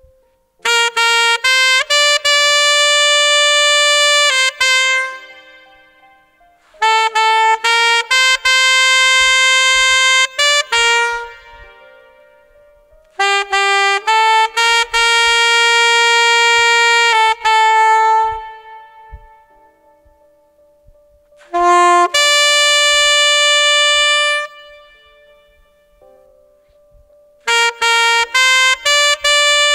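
Alto saxophone playing a slow melody in short phrases of separate held notes, each phrase a few seconds long with a pause of a couple of seconds between them.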